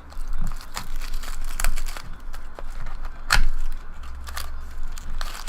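Plastic wrapping of trading card packs being torn open and crinkled by hand: irregular crackling, with the sharpest crack about three seconds in.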